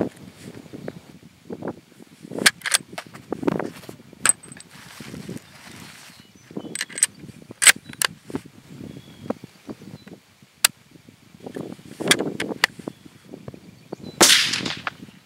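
Bolt-action Zastava M85 mini Mauser rifle being handled: a series of sharp metallic clicks and clacks from the action, then a louder, longer burst about a second before the end.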